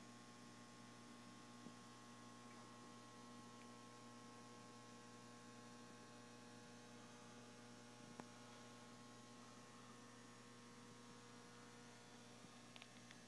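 Near silence: room tone with a faint steady electrical hum and a faint tick or two.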